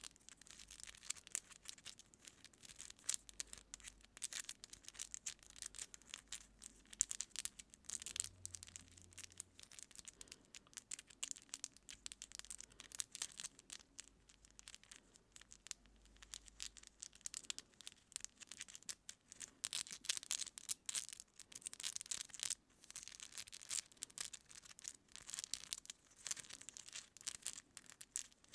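Long acrylic nails picking and scratching through hair close to the microphone: a quick, fine crackle of scratches and rustles that thickens and thins in waves.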